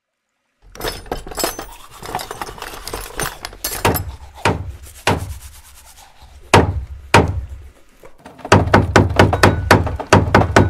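A toothbrush scrubbing for a few seconds, then a hammer tapping against a wall several times, one blow at a time. Near the end it breaks into a fast run of loud blows that knock plaster off the wall.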